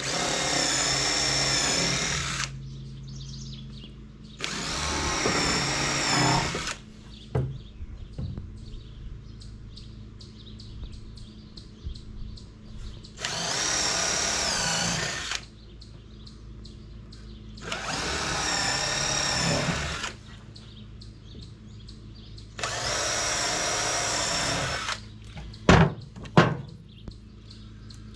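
Cordless drill running in five separate bursts of about two seconds each, a high whine every time, as fasteners go in. A few sharp knocks follow near the end.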